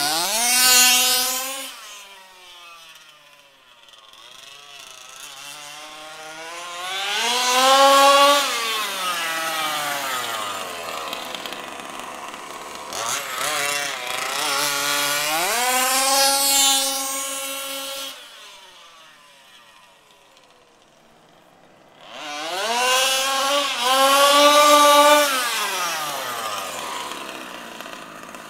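Zenoah G320 32cc two-stroke engine with a V2 Dominator tuned pipe, in an HPI Baja SS 1/5-scale RC buggy, revving hard and easing off in four bursts of throttle, the pitch climbing and falling each time. The owner says it was running slightly lean on the high-speed needle.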